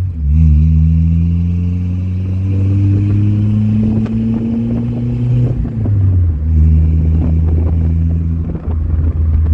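1985 Toyota 4Runner's 22RE four-cylinder engine running through a Flowmaster 40 series muffler with dual dumps, pulling up through the gears: the engine note climbs slowly, drops at a gear change a little past halfway, then climbs again.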